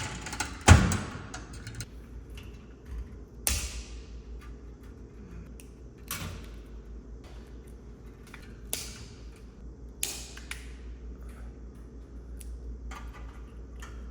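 Hand work on the metal housing of a fluorescent light fixture as its old ballast is taken out: a loud metal clunk about a second in, then several sharp snaps and clicks a few seconds apart.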